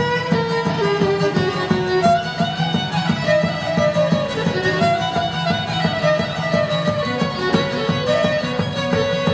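Violin and šargija playing a fast Bosnian folk kolo tune: the violin carries a moving melody over quick, even strumming of the šargija.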